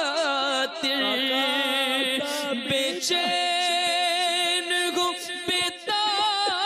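Male voice singing a naat unaccompanied, in long held notes that waver in pitch.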